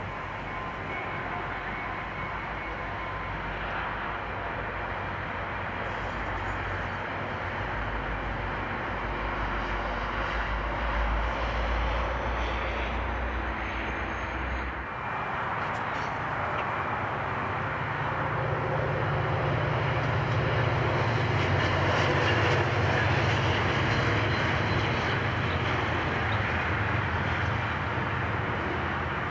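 FrontRunner diesel push-pull commuter train running past on the near track: a steady low engine drone over the rumble of the train. The sound changes abruptly about halfway through, then swells to its loudest a little past two-thirds of the way through as the train passes, easing off near the end.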